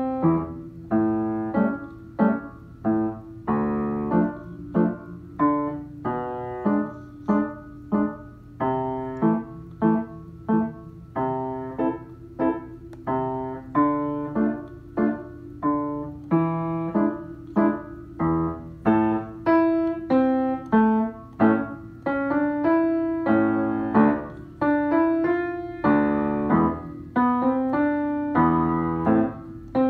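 Upright piano played with both hands: a melody over a lower accompaniment, notes and chords struck in a steady rhythm, each note fading after it is struck.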